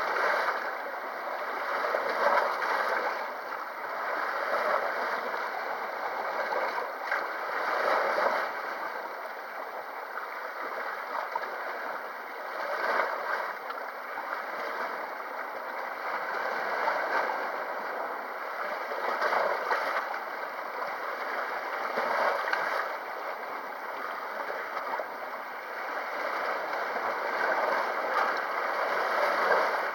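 Small sea waves lapping and washing at the shore: a steady splashing rush that swells and eases every two to three seconds.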